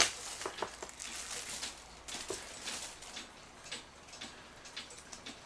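A bag of small cuckoo clock parts being emptied onto a bench and picked through: a sharp click at the start, bag rustling over the first couple of seconds, then light, irregular clicks and taps of small pieces being handled.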